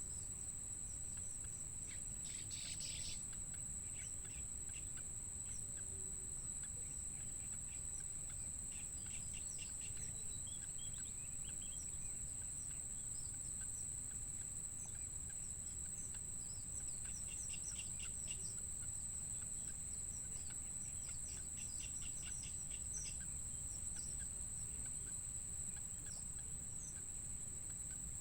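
A steady high insect drone, like crickets, with several quick runs of short, rapid bird chirps over a low rumble.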